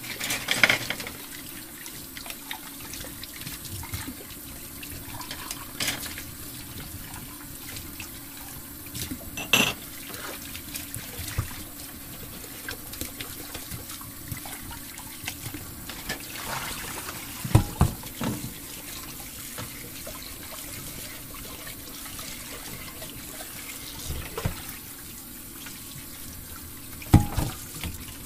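Steady sound of running water, with several short knocks and clicks scattered through it.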